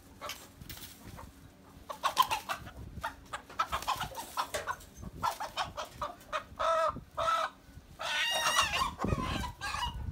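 Chickens squawking and clucking as they are caught in a fishing net, a run of short calls starting about two seconds in, with the loudest and longest squawk near the end.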